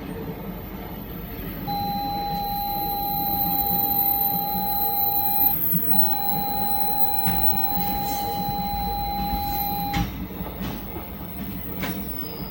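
Train whistle sounding two long, steady blasts of about four seconds each, the second cutting off sharply about ten seconds in, over the steady rumble of a freight train hauled by an EF81 electric locomotive going past.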